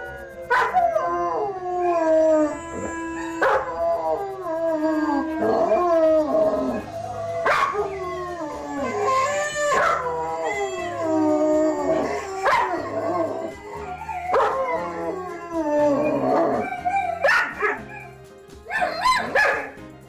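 A pack of canines howling in chorus: many overlapping howls, most sliding down in pitch, broken every second or two by short yips and barks.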